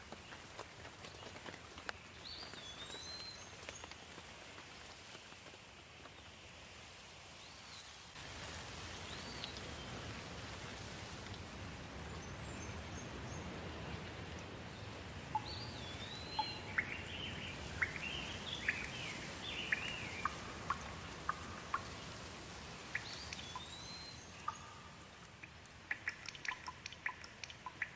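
Steady rain falling, growing heavier about eight seconds in. Over it a bird calls now and then with short whistles that rise and fall, plus a flurry of chirps midway. A quick run of sharp ticks from drops comes near the end.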